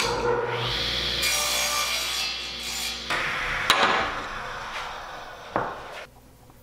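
Table saw cutting a small block of poplar: a steady motor whine with the hiss of the blade through the wood. About three seconds in the sound drops and the blade winds down, with a sharp click and a knock along the way.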